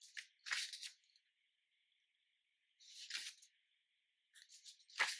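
Pages of a thick paper booklet being turned by hand: three brief papery rustles, one near the start, one about three seconds in and one near the end.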